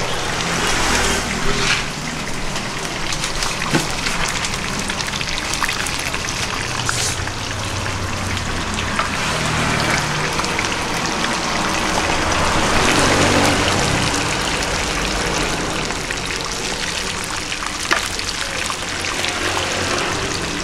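Steady sizzling and crackling of food frying in hot oil, most likely tofu being fried.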